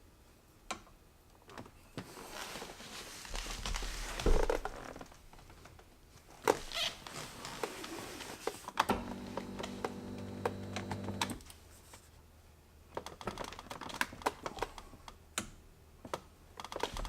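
Scattered clicks, taps and rustling of hands working at a Porsche 997 steering wheel to pop the driver's airbag free. A steady hum sounds for a couple of seconds midway.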